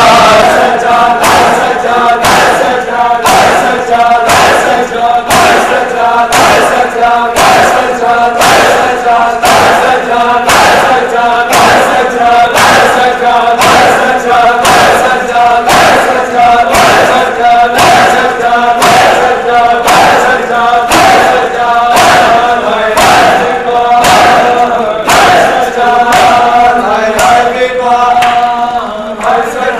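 Group of men chanting a noha (Shia Muharram lament) in unison while beating their chests in matam, the hand slaps landing in a steady rhythm about one and a half times a second.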